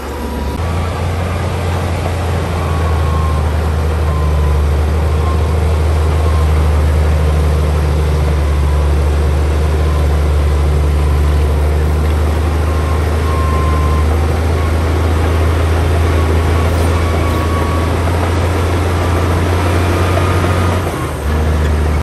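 LiuGong B160C crawler bulldozer's diesel engine running steadily under load while it pushes earth, a loud low drone.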